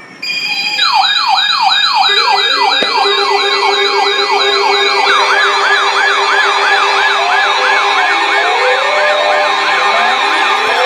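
Several electronic emergency-vehicle sirens yelping at once, starting suddenly just after the start: fast rising sweeps, about two or three a second, over a steady tone. From about eight seconds in, lower falling sweeps join.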